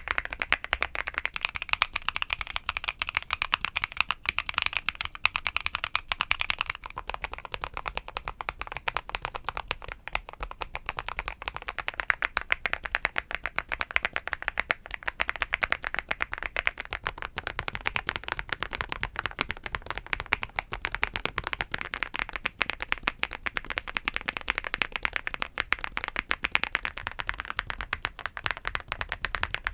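Rapid continuous typing on mechanical keyboards fitted with Haimu Midnight switches, a dense stream of keystroke clacks. The keyboard and plate change in turn: about seven seconds in, the sound of the aluminium-housing board gives way to a slightly less bright clack on a PC plate.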